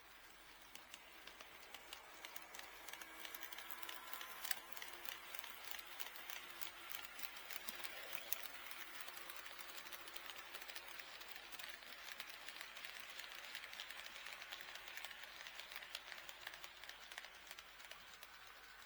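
HO-scale model train running past on KATO Unitrack: a rapid stream of light wheel clicks over the rail joints that grows louder, holds, then fades as it moves away.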